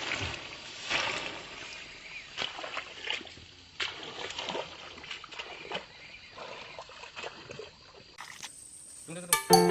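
Water splashing and sloshing with scattered small knocks. Music with a beat comes in near the end.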